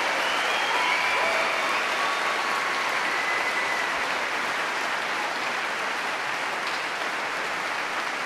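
Large concert-hall audience applauding, the clapping slowly dying down.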